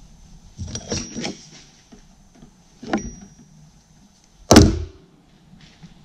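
Workbench handling sounds from working a parking brake cable housing clamped in a bench vise: a short run of scraping knocks about a second in, a single knock near three seconds, and one sharp, loud knock with a brief ring about four and a half seconds in.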